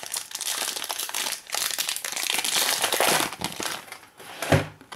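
Crinkling of a trading-card pack's wrapper as the pack is opened and the cards are pulled out. A single soft thump comes near the end.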